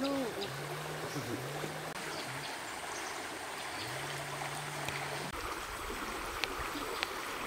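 River water flowing steadily, a constant rush. A low, level hum sounds over it twice in the first five seconds.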